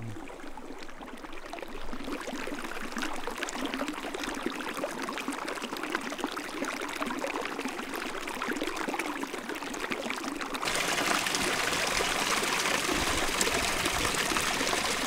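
Water of a small mountain stream running and splashing over rocks. A little over two-thirds of the way in it turns suddenly to louder, fuller rushing water.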